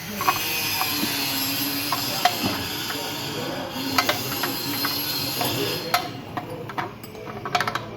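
Steady hiss of running machinery with scattered metal clicks and knocks from hand tools on metal parts. The hiss drops away about six seconds in, leaving quicker clinks near the end.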